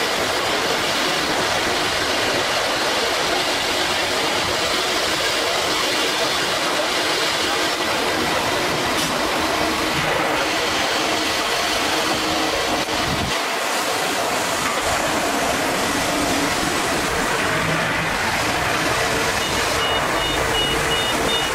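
Four-spindle CNC router (STYLECNC S1-IV-2) running, its spindles cutting grooves into a wood panel: a steady, loud whine and cutting noise that holds an even level.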